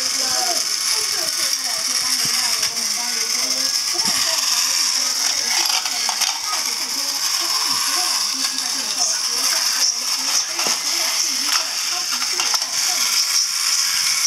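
Battery-powered TOMY toy trains running on plastic track: a steady, high-pitched gear whine from the small motors, with a busy clicking and rattling of wheels and gears over the track.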